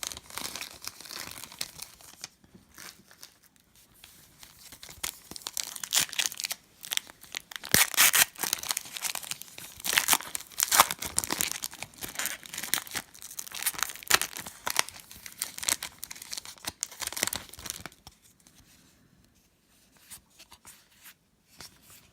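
Trading card pack wrapper being torn open and crinkled by hand: a long run of sharp crackling rips and rustles that dies down to faint handling near the end.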